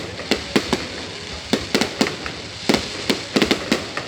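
Fireworks display going off: a rapid, irregular run of sharp bangs, a dozen or more, several coming close together about three seconds in, over a constant noisy haze.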